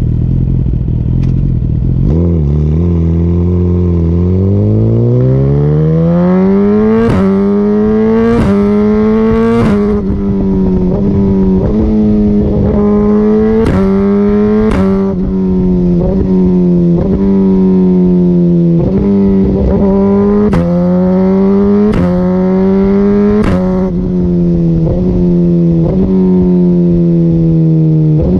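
2017 Suzuki GSX-R1000R's inline-four, through a full Akrapovic Evolution exhaust, idles low and then revs up through the gears in three runs. Each quick-shifter upshift gives a sudden drop in pitch with a sharp pop from the exhaust. Between the runs the note eases down more slowly.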